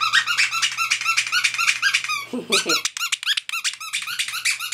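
A squeaky dog toy squeezed over and over in quick succession, several squeaks a second, each short with a rising-and-falling pitch, pausing briefly about three seconds in before going on.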